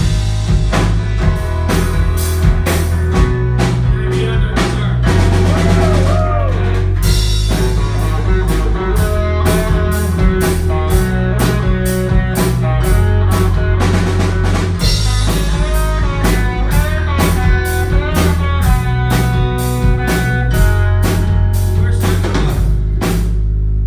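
Live rock band playing: drum kit with snare and cymbals keeping a steady beat over a stepping bass line and guitar. The drums stop shortly before the end while the other instruments ring on.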